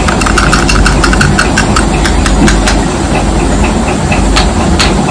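Fingers handling a small plastic jar right at the microphone: rapid clicking and scratching on the plastic over a loud, steady rushing noise.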